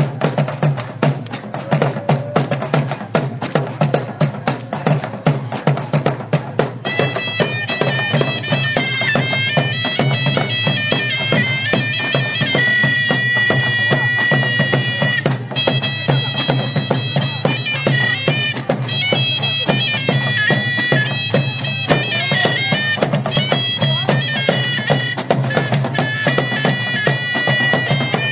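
Live traditional music on frame drums and a large drum beating a fast, steady rhythm. About seven seconds in, a high-pitched wind instrument joins with a stepping melody over the drums.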